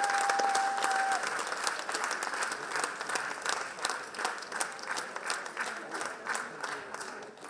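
Audience applauding, the clapping thinning out into fewer, separate claps and fading away toward the end. A single held whistle sounds over the applause in the first second.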